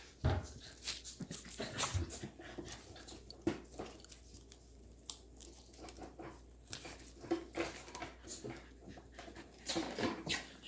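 Australian Shepherd puppies playing and chewing: a scatter of small scuffles, clicks and brief puppy noises.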